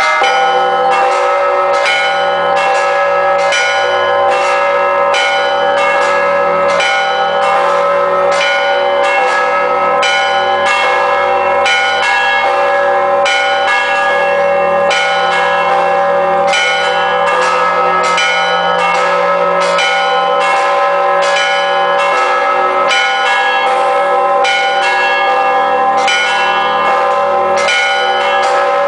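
Hand-rung set of five Orthodox cathedral bells, from a 6000 kg bass bell down to 90 kg trebles, played in a continuous peal. Quick, regular strikes on the smaller bells ring over the lasting hum of the heavier ones. A deep bass tone sounds through most of it and drops out for short spells.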